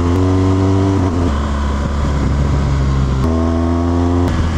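BMW R1200GS flat-twin boxer engine pulling at steady revs on the move. Its note drops lower for about two seconds from a second in, then steps back up.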